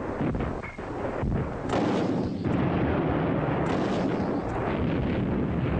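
Battle sounds of gunfire and explosions: several sharp shots and blasts over a continuous rumbling din.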